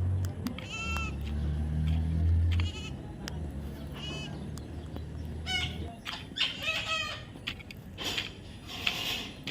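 Baby parrot calling again and again in short, shrill cries, a little over one a second, coming faster and closer together after about five seconds in. A low hum runs underneath and stops about six seconds in.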